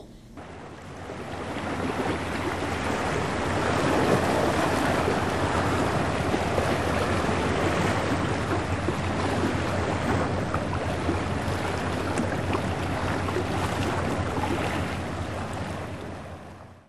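Steady wash of small waves against a stone breakwater, with wind rumbling on the microphone. It fades in over the first couple of seconds and fades out near the end.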